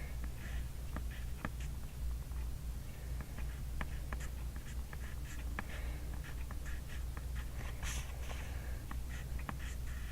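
Handwriting on a paper workbook: irregular scratchy strokes and light ticks as characters are written, over a steady low hum.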